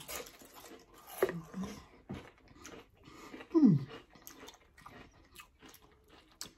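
Close-miked chewing and biting of food, with crunches and many small wet mouth clicks. A brief falling voice sound comes about three and a half seconds in.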